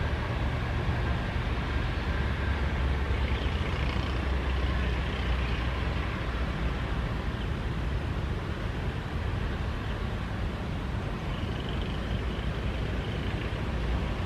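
Steady rumble of jet aircraft engines, with a faint high whine that comes and goes twice.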